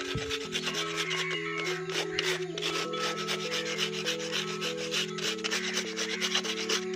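100-grit sandpaper rubbed by hand in quick back-and-forth strokes over a dried white cement and glue coating on a paper-cup vase, scratching it smooth and level. Soft background music with a simple stepping melody plays underneath.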